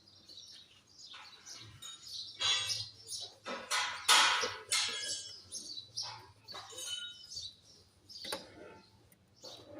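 Birds chirping in short, scattered calls, over a faint steady low hum.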